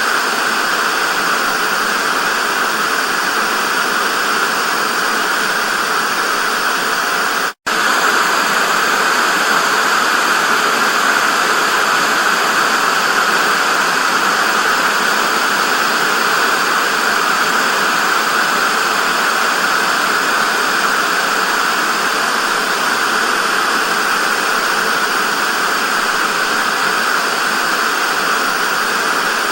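TV static: a steady, even hiss, strongest in the upper-middle range. It cuts out for a split second about seven and a half seconds in.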